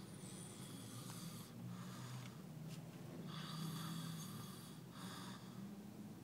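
A man snoring as he sleeps: a run of noisy breaths, each lasting about half a second to a second and a half, with short pauses between them.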